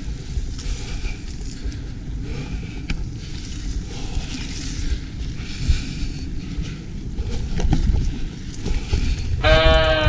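Mountain bike riding along a dirt forest trail: wind buffeting the on-bike camera microphone over a steady low rumble from the tyres on the ground. Music comes in near the end.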